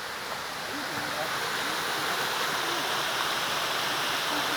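Waterfall pouring into a rock pool: a steady rushing hiss of falling water that grows slightly louder.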